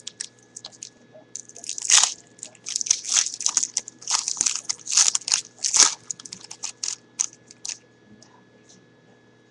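Wrapper of a football trading card pack being torn open and crinkled by hand, in a run of sharp crackles that stops about a second before the end.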